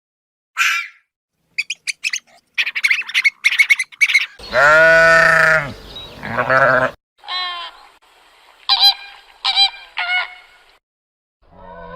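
Farm animal calls in quick succession. Rapid short high calls come first, then a long, lower call about halfway through, then a few shorter high-pitched calls near the end.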